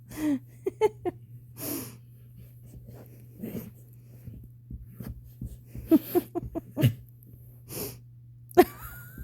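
Pets playing and scuffling: a handful of short, breathy puffs of air mixed with many quick clicks and taps, over a steady low hum.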